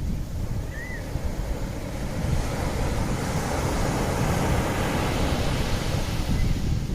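Sea waves washing onto the shore in a steady rush that swells around the middle, with low wind rumble on the microphone.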